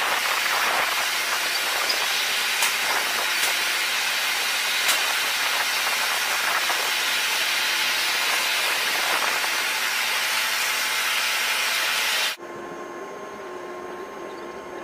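Loud steady hiss of airfield noise during cargo loading. It cuts off suddenly about twelve seconds in, giving way to a quieter steady hum with a thin whine inside the aircraft's cargo hold.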